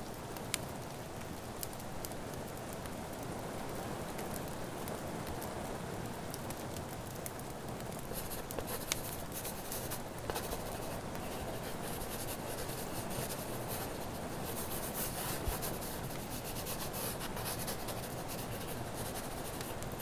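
Steady rain with a wood fire crackling in a fireplace, and someone writing on paper, a scratchy sound that comes and goes.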